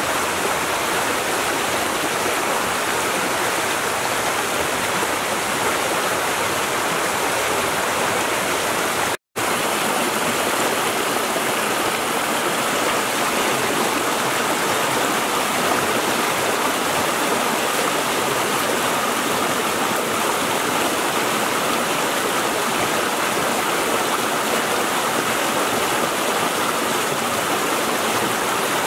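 Shallow rocky stream rushing and splashing over boulders in small cascades: a steady, even rush of water, broken once by a moment of silence about nine seconds in.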